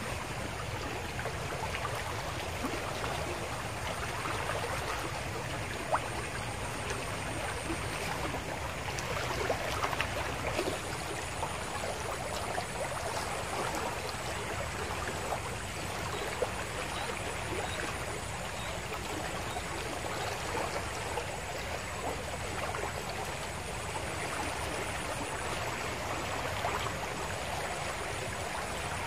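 Steady rushing of a fast-flowing river running high after rain, with a couple of small knocks.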